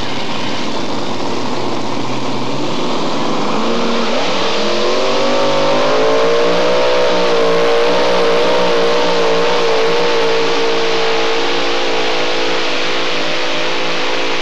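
Modified pulling tractor's engines running hard under load as it pulls the sled. About four seconds in the pitch climbs, then holds high and steady with a slight waver.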